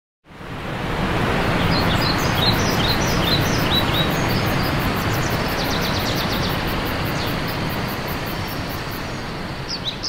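Outdoor nature ambience fading in: birds chirping and giving a quick trill over a steady rushing noise, with a faint, regular high ticking.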